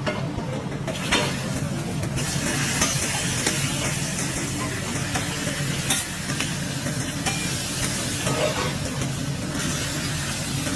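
Food sizzling as it fries, a steady hiss with a few sharp clicks of utensils.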